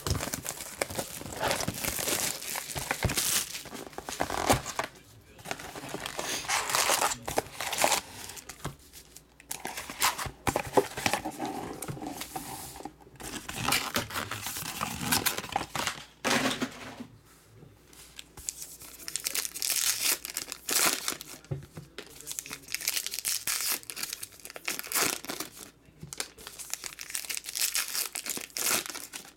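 Trading-card pack wrappers crinkling and tearing in irregular bursts as a cardboard box of sealed packs is opened, the packs are unloaded and stacked, and then a pack is torn open.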